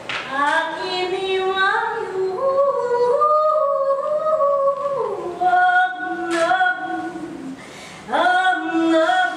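A woman singing unaccompanied, without words, in long held notes. The line climbs step by step to a high sustained note in the middle and then falls back. A brief pause comes just before the end, and then a new phrase begins.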